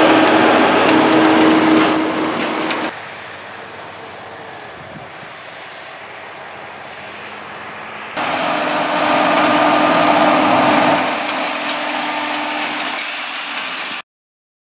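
John Deere tractor engine running steadily while pulling a Bednar Swifter seedbed compactor through tilled soil, a low hum over a rushing noise from the implement working the ground. The sound drops in level about three seconds in, grows loud again past the middle, and cuts off abruptly near the end.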